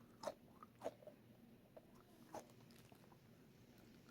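Faint handling noises of small fidget toys: a few soft taps and clicks, three of them a little more distinct, against near silence.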